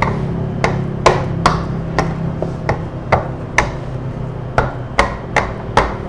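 Hand-held steel-pin dough docker pressed again and again into a thin sheet of biscuit dough, each stroke a sharp tap as the pins knock through onto the granite counter. The taps come about two a second, with a short pause near the middle.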